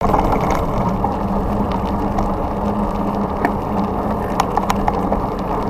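Vehicle engines idling in traffic at an intersection: a steady low rumble with a steady hum, and a few faint light clicks.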